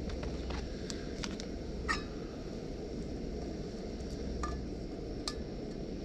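Butane camping gas burner running under a pot of water at the boil: a steady low rush, with a few light clicks over it.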